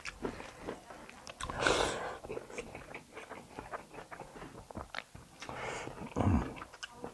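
Close-up chewing and biting of kalij pheasant meat, with many small wet clicks and two longer noisy stretches, about a second and a half in and near the end. The meat is a bit tough.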